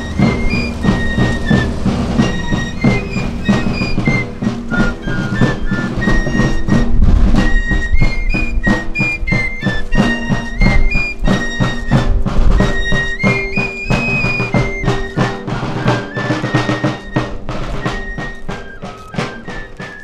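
Music: a high flute melody of short held notes over steady drumming, getting quieter toward the end.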